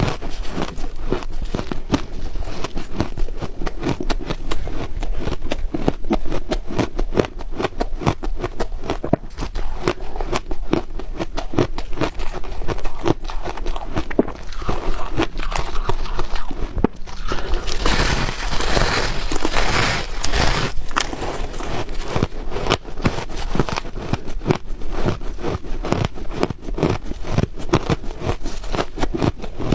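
Ice being chewed close to the microphone: dense, rapid crunching and crackling with no pause, with a brighter, hissier stretch of crunching about two-thirds of the way through.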